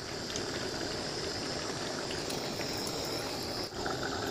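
Chicken and potato curry simmering in a steel kadai over a gas burner: a steady, even hiss.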